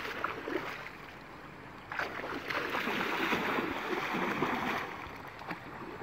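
Water splashing and sloshing as people swim and wade through a shallow, muddy river. It comes in two stretches, a short one at the start and a longer one from about two seconds in until near the end.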